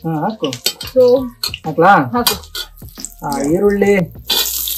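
People talking over a pan, then near the end a sudden steady sizzle starts as thick-cut onions go into hot oil.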